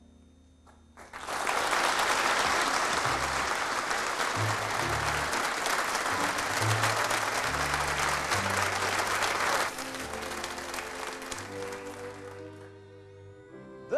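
Theatre audience applauding, starting about a second in and stopping abruptly near ten seconds, with low sustained orchestral notes beneath it. Afterwards a soft orchestral introduction plays on alone.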